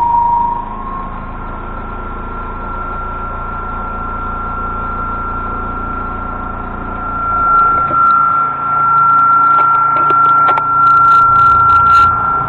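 Panasonic NW-90RC twin-tub washing machine running: a steady motor hum under a constant high-pitched tone. It grows louder about seven seconds in, with a few clicks.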